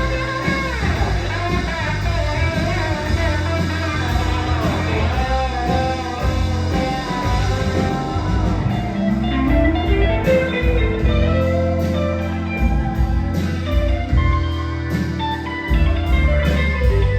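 A band playing blues-rock: a guitar lead with bent and sliding notes over bass and drums, a long downward slide about half a second in and an upward slide past the middle. In the second half a cymbal ticks steadily, about three times a second.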